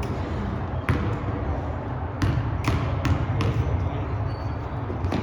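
Basketball bouncing on a gym floor: about five sharp bounces, the quicker ones roughly half a second apart, over the steady background noise of the gym.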